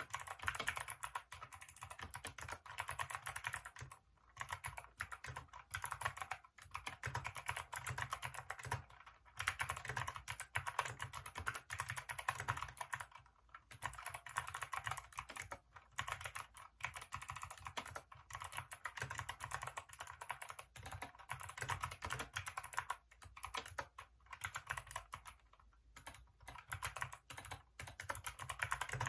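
Continuous fast typing on a Hacker K611 mechanical keyboard with Kailh optical switches: a dense run of key clicks and clacks, broken by several brief pauses.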